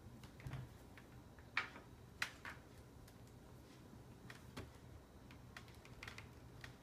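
Scattered light clicks and taps on a laptop, about half a dozen, over a faint steady low hum.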